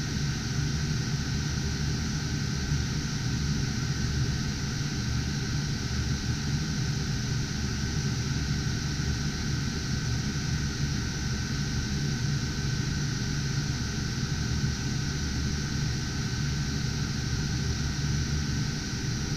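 Cooling fans of GPU cryptocurrency mining rigs running together: a steady whirring rush with a low hum underneath and a faint thin whine.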